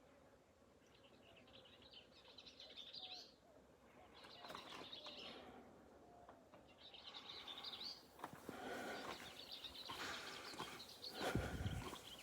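Small birds chirping faintly in several short bursts of quick, high twittering. A brief low rumble comes near the end.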